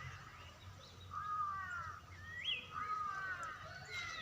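Birds singing: a series of clear whistled phrases of sliding, mostly falling notes, starting about a second in and repeating over the next few seconds.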